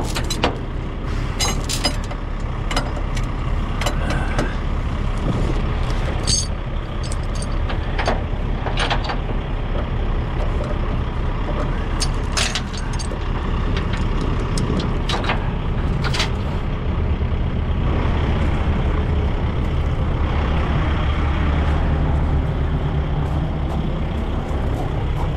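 Heavy diesel truck engine idling steadily, with scattered sharp metallic clinks and clanks of a steel chain being handled, about a dozen over the first two-thirds.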